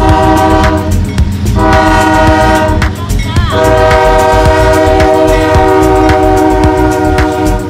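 CSX diesel locomotive's multi-note air horn blowing for a grade crossing: two blasts of about a second and a half each, a short break, then a long held blast lasting to the end. Underneath, the locomotive's engine rumbles and the crossing signal bell ticks steadily.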